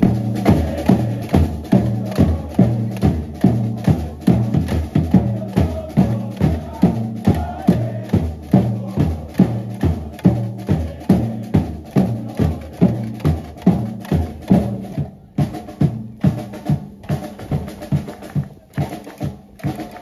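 Football supporters' samba-style drum section: aluminium surdo bass drums and a snare drum beating a steady rhythm, about two heavy beats a second with lighter strokes between. The rhythm breaks off briefly a few times near the end.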